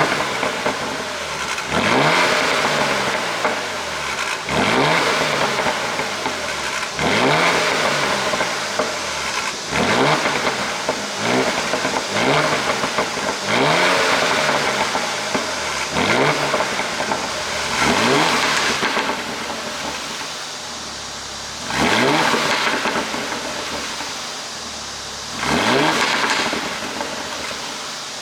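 Porsche Cayenne GTS 3.6-litre V6 revved in repeated blips about two seconds apart, each rising and falling in pitch, with longer pauses near the end. Its exhaust pops and crackles as the revs drop, from a pop-and-bang ECU tune.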